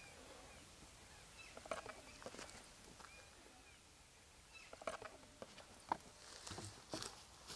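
Faint outdoor background with scattered soft clicks and rustles, a few more of them near the end, and a brief high chirp about three seconds in.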